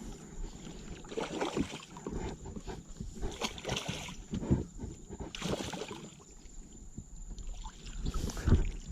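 Irregular knocks and clatter with water sloshing around a kayak.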